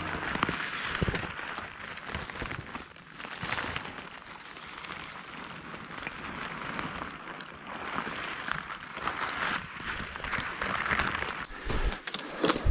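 Dry brush and twigs rustling and crackling as someone moves through thick scrub, with many small snaps and no steady rhythm.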